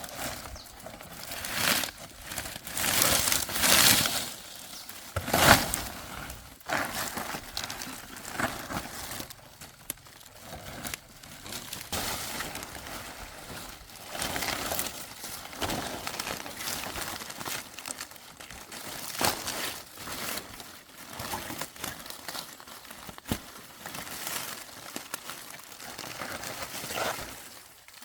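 Irregular crinkling and rustling as old roofing material is pulled off and handled, with a few sharper, louder knocks among it.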